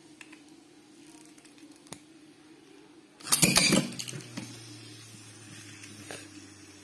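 Homemade Beyblade spinning top with a balance-type driver launched about three seconds in: a short burst of clattering as it leaves the launcher and lands in the stadium. It then keeps spinning with a faint steady whirr.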